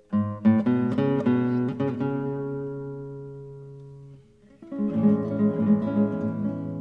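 Acoustic guitar music: a quick run of plucked notes that rings out and slowly fades, then a new phrase of notes starts about four and a half seconds in.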